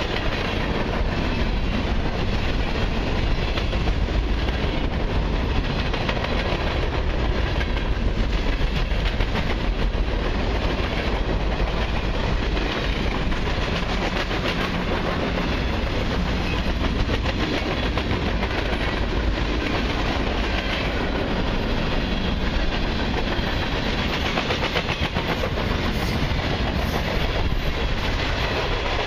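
Mixed freight train's covered hoppers and boxcars rolling past with a steady rumble, steel wheels clacking over rail joints.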